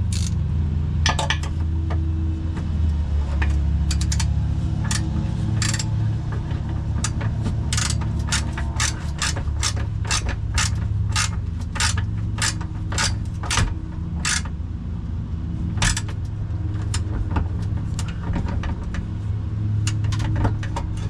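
Hand ratchet wrench clicking in runs of short sharp clicks, about two or three a second, while a bracket bolt is being tightened, over a steady low hum.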